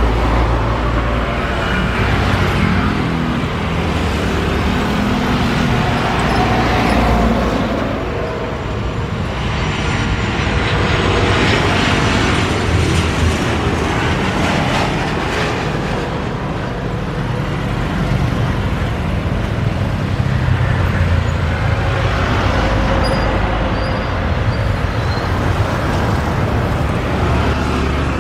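Jet airliner engines on landing, a loud, steady rush over a low rumble, with a faint high engine whine around the middle.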